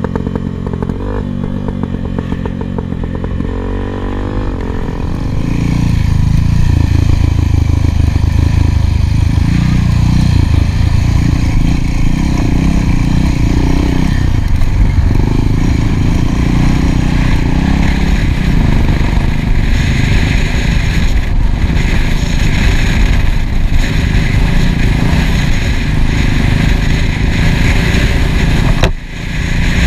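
Dual-sport motorcycle engine running under throttle, heard from the bike itself: quieter with shifting pitch for the first few seconds, then louder and steady from about six seconds in, with a brief dip near the end. The louder part is a Yamaha XT 600, a single-cylinder four-stroke.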